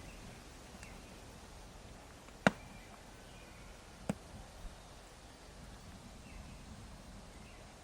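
Campfire wood popping: one sharp, loud crack about two and a half seconds in, then a smaller one a second and a half later, over a faint quiet background.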